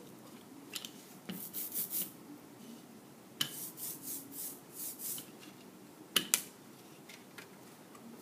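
Rubber brayer rolled back and forth over inked foam printmaking surfaces: two runs of short hissing strokes, a few a second, then two sharp taps a little after six seconds in.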